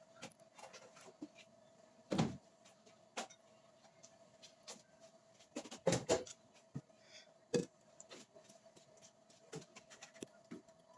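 Kitchen handling sounds: scattered knocks and taps of utensils and dishes on the counter, a few sharper ones bunched about six seconds in, over a faint steady hum.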